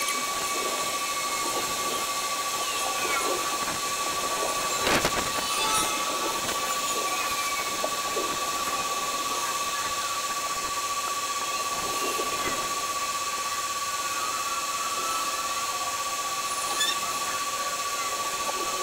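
Outdoor ambience played back at 20 times speed: a steady hiss with a constant high whistling tone, scattered short chirps and squeaks, and one louder burst about five seconds in.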